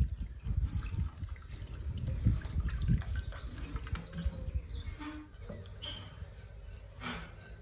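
Long wooden pestle pounding a white mix in a terracotta mortar: a run of dull thuds about twice a second, weaker after about three seconds.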